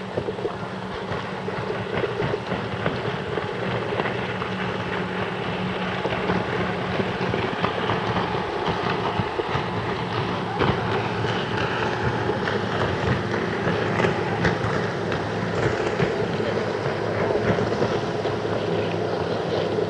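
Wind blowing across the microphone with water noise on an open lake, under a steady low hum.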